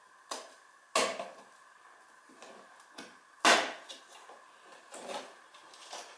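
Cardboard advent calendar door pushed open and its small packed contents handled: a series of sharp clicks and knocks with light rustling between them, the loudest about three and a half seconds in.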